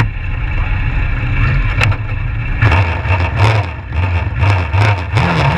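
Legends race car's Yamaha motorcycle engine running while the car is held on the start line. From a little under halfway in it is revved in a quick series of throttle blips, about two a second, and its pitch wavers upward just before the end.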